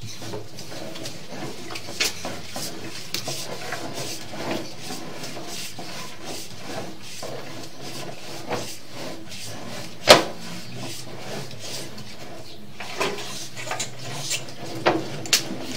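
Sewer inspection camera's push cable being pulled back out of the drain line and fed onto its reel: continuous rubbing and scraping with many small clicks, and one sharp knock about ten seconds in.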